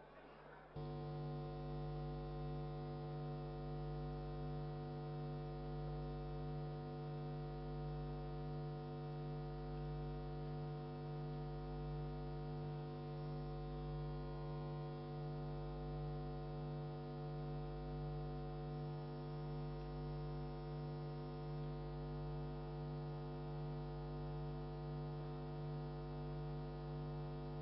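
Steady electrical mains hum with many even overtones. It switches on abruptly about a second in and holds constant, with no other sound over it.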